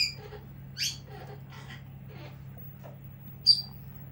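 Pet parrot giving three short, high-pitched chirping calls, the loudest near the end. It is answering prompts to imitate a cat's meow.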